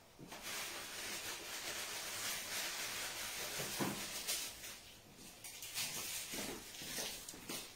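A steady hiss for about five seconds, then a few short knocks and clatters of things being handled in the kitchen.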